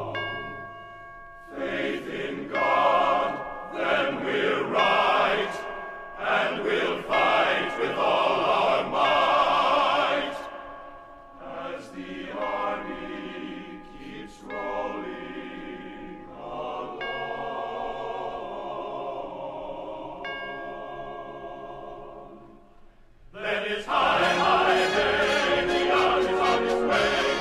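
Choral music: a choir singing with instrumental accompaniment. After a brief quiet dip, it swells into a louder, fuller passage near the end.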